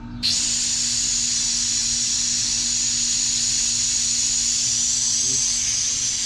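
Pressurised nitrogen venting from an air conditioner's refrigerant lines through the gauge manifold: a loud, steady hiss that starts sharply just after the beginning. This is the leftover pressure-test nitrogen being released before the system is vacuumed.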